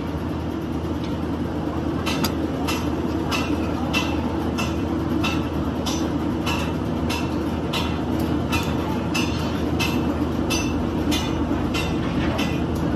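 Hydraulic press running with a steady hum as its ram presses down on a bent excavator hydraulic cylinder tube to straighten it. From about two seconds in, a sharp tick repeats regularly, roughly every 0.6 seconds.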